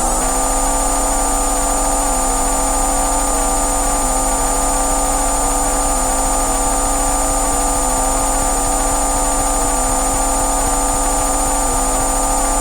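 Synthesized bioresonance frequency tones: several steady electronic pitches layered into one constant drone, with a high whine on top and a low hum beneath. The tones step slightly in pitch every second or two.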